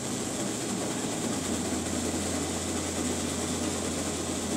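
Steady whirring rumble of a curved non-motorized treadmill's belt spinning under a sprinter, over a low mechanical hum that drops a little in pitch about a second and a half in.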